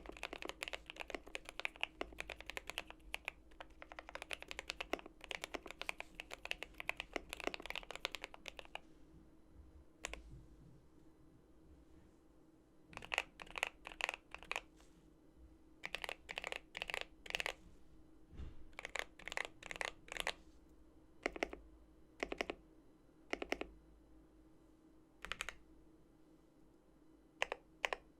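Custom GMMK Pro mechanical keyboard with lubed and filmed JWK Durock HaluHalo linear switches on a polycarbonate plate being typed on: fast, continuous keystrokes for about nine seconds, then after a pause, short scattered runs of clacky presses with gaps between them.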